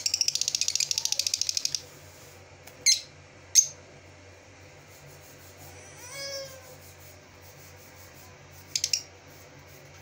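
Caged lovebirds calling: a fast, high rattling chatter for nearly two seconds, then two loud sharp chirps and later a short burst of chirps. About six seconds in comes a longer pitched call that rises and wavers.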